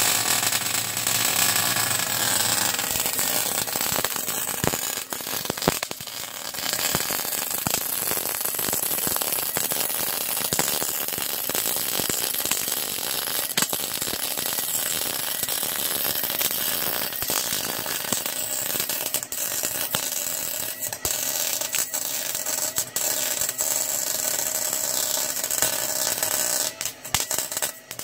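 Wire-feed welder arc crackling steadily as a butt weld is run along a gappy joint in an exhaust pipe, with a few short breaks. Near the end it stutters in short bursts.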